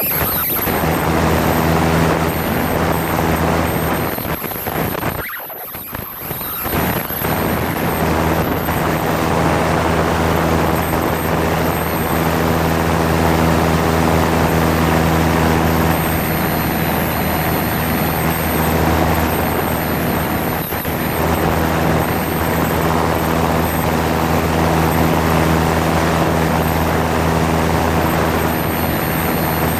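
Cessna 172's piston engine and propeller running steadily in flight, a constant hum over a steady hiss. The sound drops away briefly about five seconds in, then carries on unchanged.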